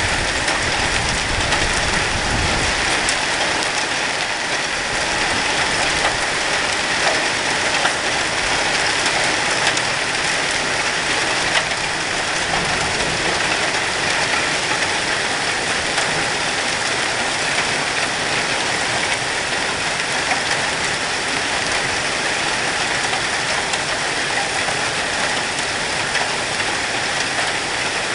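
Heavy hail falling steadily: a dense, even patter of hailstones on the lawn, hedge and gravel.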